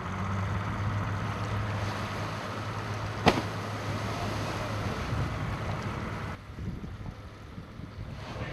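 Boat engine running at a steady low hum under wind and water noise, with a single sharp knock a little over three seconds in; the engine hum drops out about six seconds in, leaving quieter wind and water.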